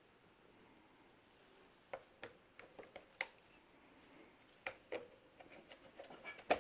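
Quiet room tone, then from about two seconds in a run of sharp, irregular clicks and light knocks of hard objects being handled, a few with a brief ring.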